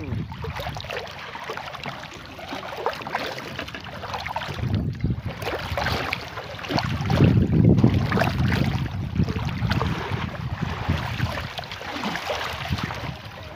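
Continuous irregular splashing and sloshing of shallow water as several people wade and grope for fish with their hands, louder about seven seconds in.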